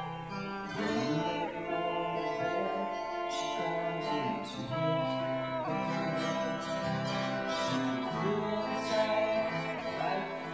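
Live folk-rock band playing an instrumental break: strummed acoustic guitar with other pitched instruments carrying a melody over it.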